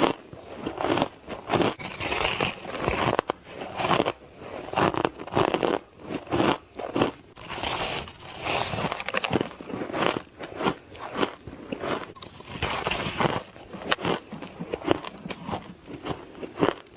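Crushed ice being bitten and chewed close to the microphone: a dense run of irregular, crisp crunches and crackles.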